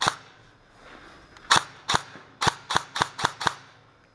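Airsoft gun firing single shots: one shot, then seven more in a quick, uneven string over about two seconds.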